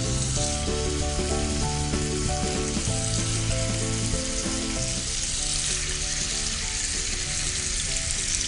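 Raw boneless chicken pieces sizzling steadily as they are laid into hot oil in a nonstick frying pan.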